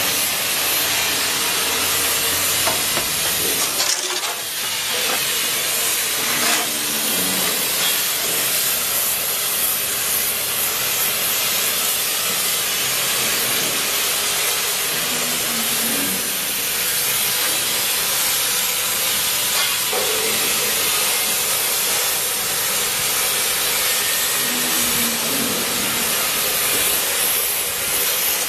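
Spray gun hissing steadily as it sprays EonCoat corrosion-resistant coating onto welded steel joints.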